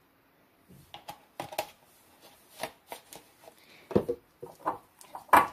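Small wire whisk stirring powdered sugar and heavy cream into a thick glaze, clicking and knocking irregularly against the sides of a small ceramic bowl. It starts about half a second in, and the loudest knock comes near the end.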